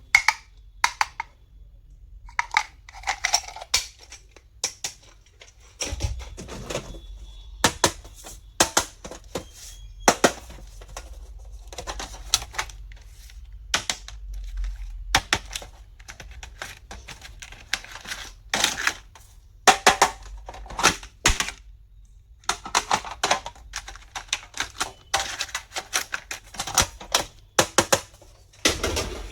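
Hands handling small plastic stationery items and packaging: irregular sharp clicks and taps, with short stretches of rustling in between.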